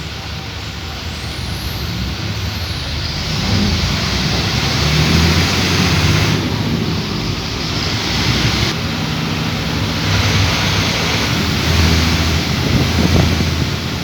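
Road traffic on wet streets: a steady hiss of passing vehicles' tyres and engines, growing louder about three seconds in.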